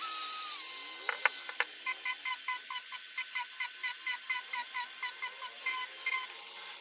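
Dremel rotary tool with a fine-grit sanding head switched on at reduced speed and run against EVA foam, giving a steady high-pitched motor whine.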